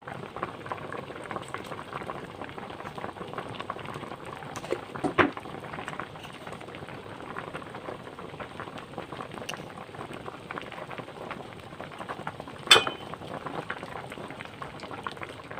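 Cooking liquid bubbling at a boil in a pot, a steady crackling bubbling. Two sharp clinks stand out, about five seconds in and near thirteen seconds.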